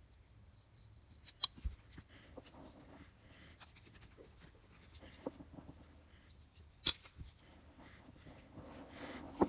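Handling noise from wires and a replacement power-cord plug being fitted, with a few sharp clicks. The loudest click is about seven seconds in.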